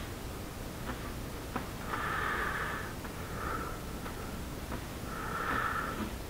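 A man breathing through his nose with a faint whistle, several breaths a second or two apart. A few faint clicks come from fingers pressing on the plastic model hull.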